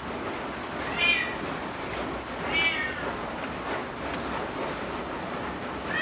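A cat meowing twice, about a second and a half apart. Each meow is short, high-pitched and falls in pitch, over a steady background hiss.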